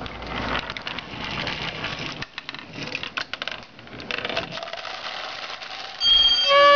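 Rube Goldberg chain-reaction machine running: a stream of small clicks, knocks and clatter as marbles and parts roll and strike each other. About six seconds in, an air horn sounds in a loud steady blast.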